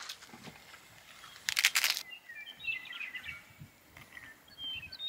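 A crisp, crackly crunch about a second and a half in, most likely a bite of crunchy taco shell close to the microphone. It is followed by small birds chirping in short, high calls.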